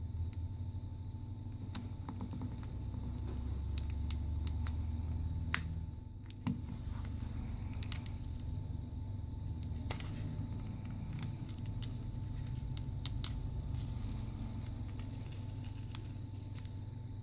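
Scattered light clicks and ticks of a prying tool working a cracked screen loose from a phone's frame, with two sharper clicks about six seconds in, over a steady low hum.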